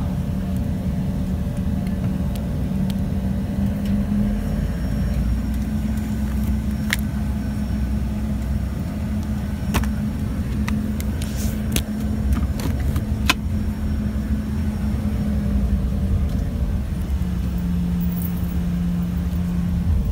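Airliner cabin noise: the aircraft's engines running as a steady low rumble with a held drone that shifts pitch slightly a few times. A few sharp clicks and small rattles near the middle.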